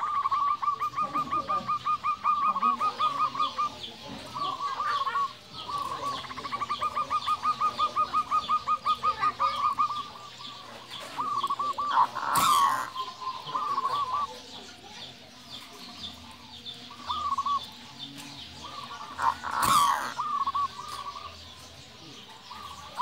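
Zebra dove (perkutut) cooing: two long runs of rapid staccato notes, each a few seconds long, then shorter cooing phrases. About halfway through there is a brief flutter as the dove flaps on its perch. A second bird chirps faintly and repeatedly in the background.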